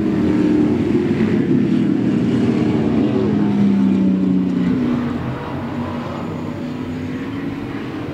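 Several muscle-car racing engines running hard as the cars go through a corner one after another, a steady engine note that eases off about five seconds in.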